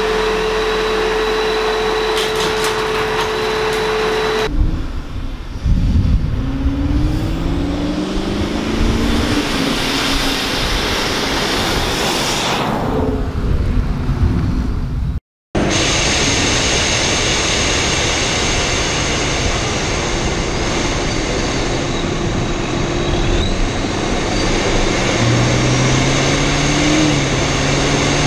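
Supercharged Chevrolet Camaro SS V8 accelerating hard, its engine note climbing in several steps as it shifts up through the gears. After a sudden cut, the same car is heard at speed from a camera on its front grille, with steady wind rush over the engine and the engine note rising again near the end.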